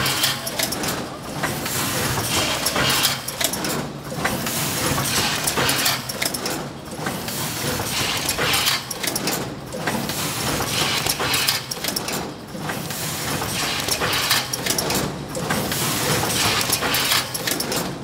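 Automatic packing machine for microwave popcorn bags running: a loud, dense clatter and hiss of its mechanisms, with short lulls about every three seconds as it cycles.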